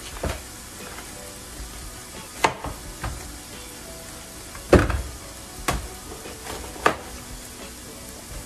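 Large kitchen knife cutting through a head of cabbage and knocking down onto a plastic cutting board: about six sharp chops, the loudest about five seconds in. Underneath is the steady sizzle of bacon and onions frying in a pan.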